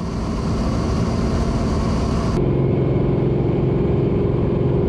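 Cessna 185's Continental IO-550 six-cylinder engine and propeller droning steadily in cruise flight, heard inside the cabin; the engine runs very smoothly. About halfway through, the sound changes abruptly, losing its hiss and becoming a deeper, more tonal hum.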